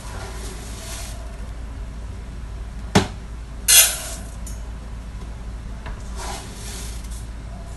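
A plastic cup scooping dry rice from a plastic storage bin and tipping it into a stainless steel pot. About three seconds in the cup knocks sharply against the pot, and moments later the grains rattle into it in a brief bright hiss. Softer rustling of the bin and scooping comes at the start and near the end.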